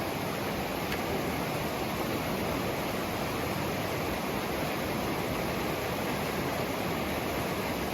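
Vallecito Creek rushing steadily, running high and fast: a strong, even flow of water at a river crossing.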